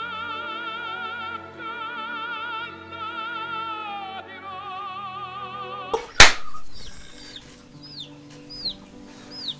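A male opera singer holding long sung notes with strong vibrato, shifting pitch about four seconds in. About six seconds in, a sharp knock cuts the singing off. High, short, falling bird chirps follow, about one every second.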